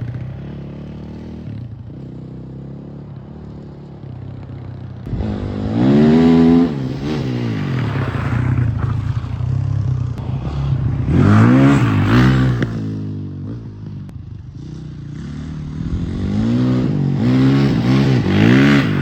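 Four-stroke dirt bike engine running and revving up and back down three times, the pitch climbing and falling with each rev. The engine is pulling cleanly now that its clogged pilot jet has been cleared.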